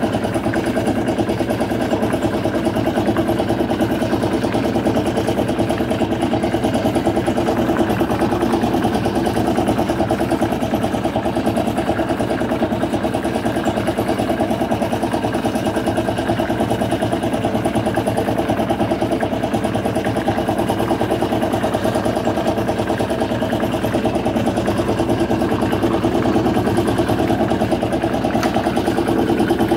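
RP4 shaker table running steadily: its drive motor and shaking deck make a constant mechanical hum and rattle while it separates wet crushed ore concentrates.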